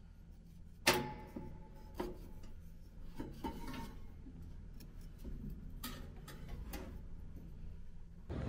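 Countertop toaster oven baking sweet potatoes: a low steady hum with scattered metallic ticks and clicks, the loudest a sharp clink with a short ring about a second in.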